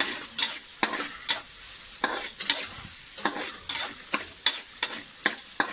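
Metal spatula scraping and tapping against a metal pan while diced pork sautés in a little oil, with a soft sizzle underneath. The scrapes and taps come irregularly, about twice a second.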